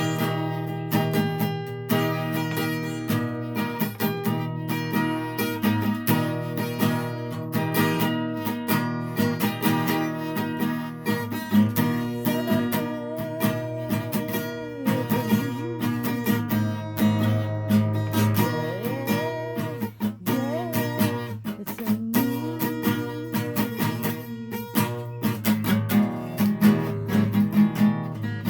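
Acoustic guitar being strummed and picked continuously through a song, with a wavering melody line rising and falling over the chords a few times in the middle.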